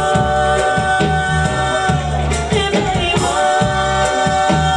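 Roots reggae dub tune played loud on a sound system: a heavy repeating bassline under a long held high note, which breaks off and comes back about three seconds in.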